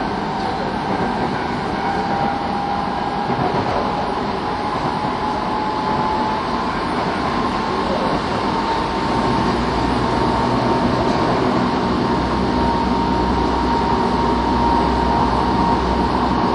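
Kobe Municipal Subway 3000 series train running between stations: a steady rumble of wheels on rail with a thin motor whine that climbs slowly in pitch over the first several seconds, then holds steady as the low rumble grows a little.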